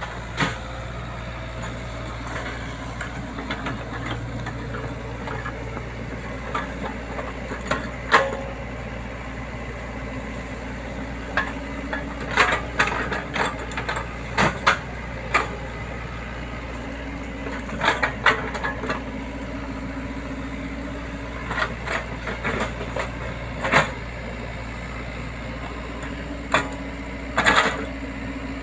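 Excavator diesel engine running steadily while the machine works, with irregular sharp knocks and rattles, some in quick clusters.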